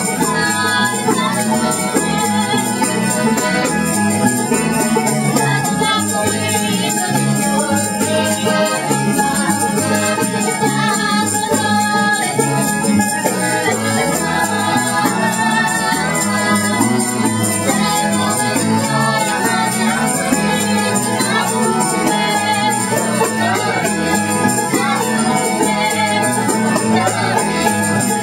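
Live music played by a music group: a steady, fast beat of shaken percussion, with singing that comes through more strongly in the second half.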